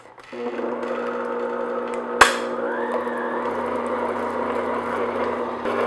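Electric stand mixer switched on and running steadily, its beater mixing the last of the liquid into a thin chocolate cake batter in a glass bowl. One sharp knock about two seconds in.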